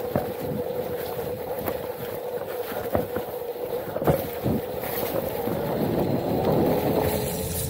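Onewheel electric board riding over rough trail: its hub motor whines on one steady note, with wind on the microphone and sharp knocks as the board hits rocks and roots. The whine sags a little in pitch near the end.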